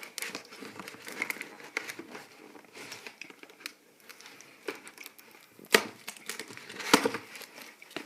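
Packaging being handled as a cardboard box is unpacked: irregular crinkling and rustling, with two sharp knocks a little over a second apart near the end.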